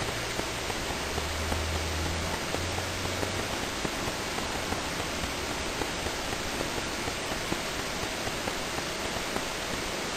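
Steady hiss of background recording noise, with faint ticks a few times a second and a brief low hum near the start.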